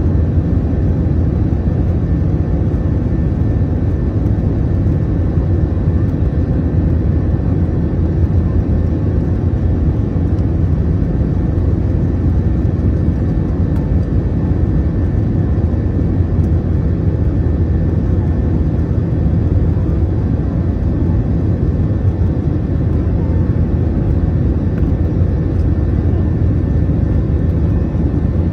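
Steady cabin roar of an Airbus A321 climbing after takeoff, heard from a window seat beside the wing. Its IAE V2533-A5 turbofans run at climb thrust under the rush of air along the fuselage, with a deep rumble and a few faint steady tones.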